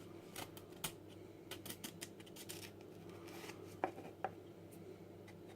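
Faint, scattered light clicks and scratches of a toothbrush and the plastic scale model being handled, the bristles scrubbing dried salt off the sprayed paint, over a steady low hum. Two sharper clicks come a little past the middle.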